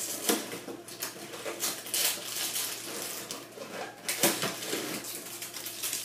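A cardboard Ritz cracker box and the wrapped cracker sleeve inside it rustling and knocking as a sleeve is pulled out, in irregular scrapes and taps with a few sharper knocks.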